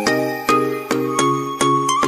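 Background music: a melody of short, ringing pitched notes, evenly spaced at about three a second.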